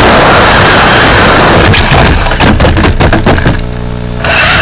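Loud, distorted running noise of a radio-controlled rally car's motor, drivetrain and tyres, picked up by its onboard camera microphone. About two seconds in it breaks into a run of crackles and clicks as the car slows. Near the end a steady low hum is left as the car comes to a stop.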